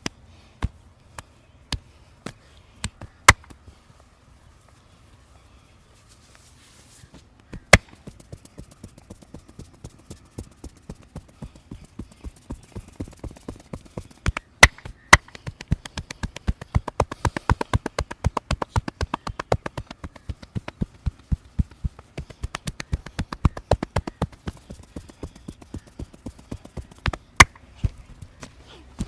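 Hands striking a person's head and neck in a massage: a few scattered sharp smacks, then a long, fast, even run of pats and chops, several a second, with a few much louder slaps among them.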